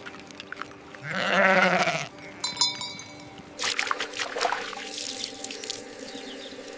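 A goat bleating once, a wavering call about a second long.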